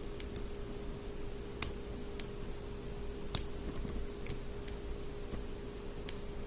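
Small metallic clicks of a hook pick working the pin stack of a six-pin cabinet lock under tension, scattered and light, with two sharper clicks about a second and a half and three and a half seconds in. A steady hum runs underneath.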